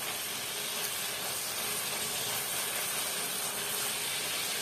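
Spiced onion-and-potato masala sizzling steadily in oil in a steel kadhai while a spatula stirs it.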